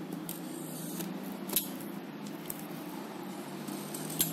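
Handling of a plastic-wrapped cardboard box, with two short sharp clicks, one about a second and a half in and one near the end, over a steady low hum.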